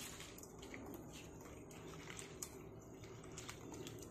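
Water sloshing and squishing as a hand stirs and rubs rice flakes in a steel pot to wash them, with small irregular splashes and clicks.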